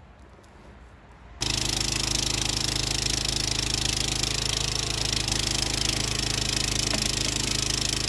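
Jansen MB-300 mini backhoe's engine running steadily as its bucket digs out a young tree; the engine sound comes in abruptly about a second and a half in.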